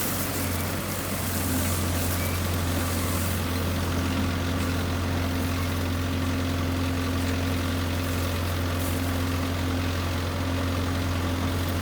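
Heavy diesel engine idling steadily, with an even low hum.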